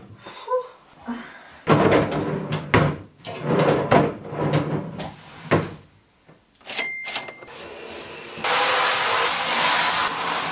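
Wooden drawers of an unfinished-pine IKEA chest of drawers being slid in and pushed shut: a run of sharp wooden knocks and scrapes. Near the end comes a couple of seconds of steady hissing noise.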